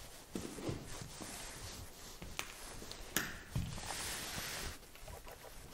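Soft footsteps on a littered floor, with a couple of sharp clicks and a short stretch of rustling about three seconds in.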